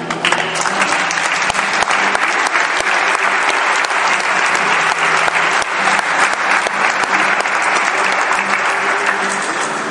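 Audience clapping, starting sharply as a song ends and tapering off near the end.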